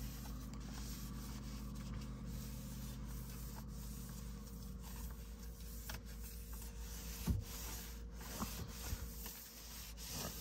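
Faint rubbing and rustling of hands handling and swapping an item inside a car, with a couple of light knocks in the second half. A low steady hum runs underneath and fades out about halfway.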